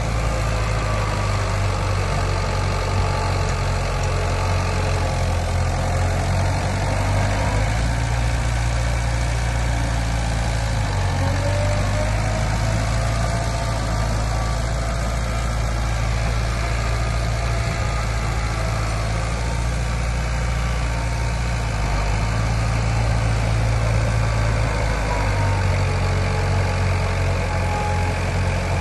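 Heavy diesel engine of earthmoving machinery running steadily, its pitch stepping up and down a few times, with a faint whine that rises and falls above it.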